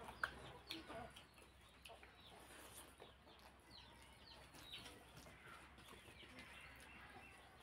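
Quiet, wet eating sounds: fingers squishing rice and curry gravy on a plate and a mouthful being chewed, a run of small smacks and clicks, most frequent in the first second.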